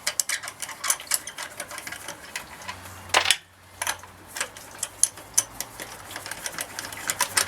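Rapid, irregular metallic clicking and ticking of a hand tool turning out wheel bolts that have already been cracked loose, with one louder clank about three seconds in.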